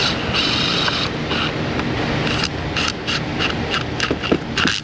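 Hand ratchet clicking in short, quick strokes, about four a second, as a battery terminal or hold-down is tightened.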